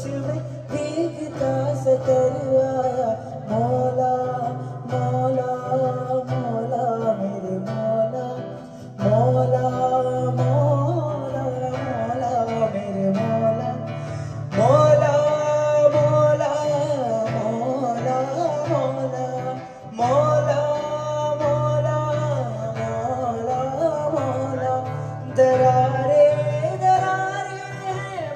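Acoustic guitar accompanying a male singer, amplified through a stage sound system, the melody rising and falling in phrases with louder passages.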